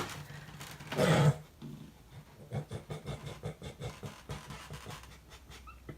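A pet animal making noises: one short louder sound about a second in, then quick soft rustling and snuffling sounds.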